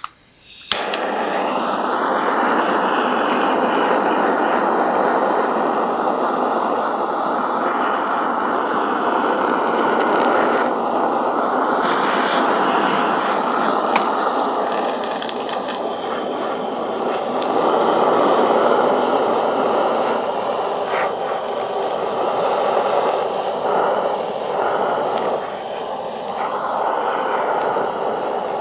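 Handheld kitchen blowtorch lit with a click, then its flame hissing steadily and loudly as it is played over cheese slices to melt and brown them.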